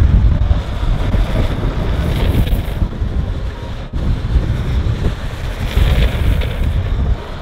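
Wind buffeting the microphone of a camera moving fast downhill: a steady rushing noise heavy in the low end, briefly dropping out about four seconds in.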